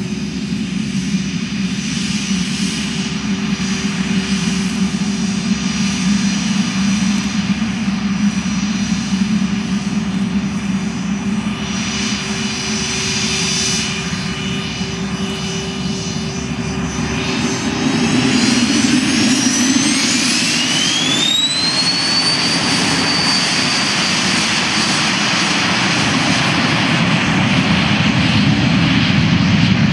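Twin Williams FJ44 turbofans of a Cessna Citation C525 business jet running with a steady whine. About eighteen seconds in they spool up: the sound grows louder and the whine climbs sharply in pitch, then holds high as the jet goes to power for its takeoff roll.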